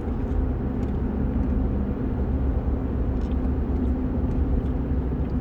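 Steady low vehicle rumble with a faint hum and no sudden sounds.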